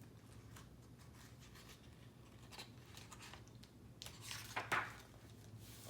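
Faint paper rustling and soft clicks from a picture book being handled, with one louder swish of a page being turned about four seconds in.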